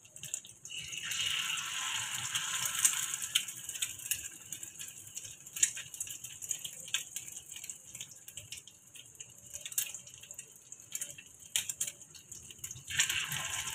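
Egg-coated potato kababs shallow-frying in hot oil in a pan: steady sizzling with scattered crackling pops. The sizzle swells louder for a couple of seconds about a second in, and again near the end.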